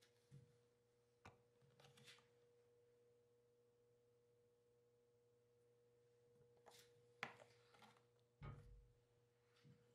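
Near silence: a faint steady electrical hum, with a few soft handling clicks, the clearest about seven seconds in.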